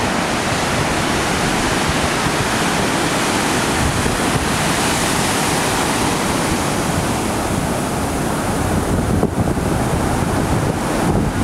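Pacific Ocean surf breaking and whitewater washing up the beach, a steady rushing noise, with wind buffeting the microphone in a low rumble.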